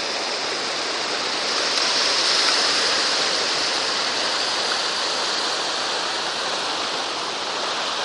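Heavy surf on a rough sea: waves breaking and whitewater washing over the ocean rock pool wall, a steady rush of water noise that swells about two seconds in.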